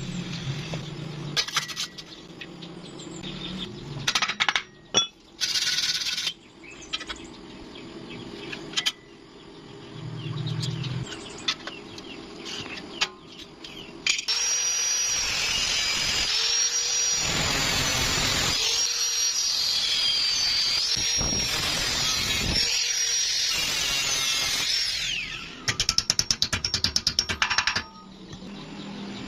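A metalworking power tool runs steadily for about ten seconds in the middle, after a series of short tool noises and knocks. Near the end comes a quick run of rapid, sharp taps.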